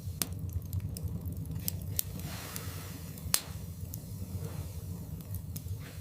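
Wood fire burning in a fireplace: a steady low rumble of flames with irregular sharp crackles and pops from the logs, the loudest pop a little past halfway.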